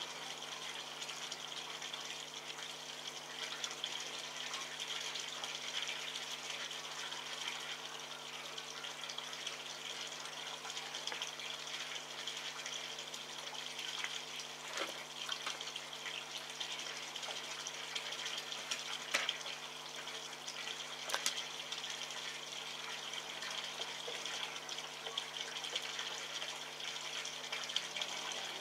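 Steady hiss like running water over a faint low hum, with a few faint sharp clicks and smacks scattered through the middle as a red fox eats wet meat chunks from a metal tray.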